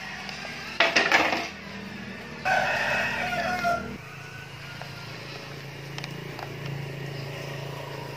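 A rooster crowing: a short loud call about a second in, then a longer call with a falling pitch from about two and a half seconds in, over a steady low hum.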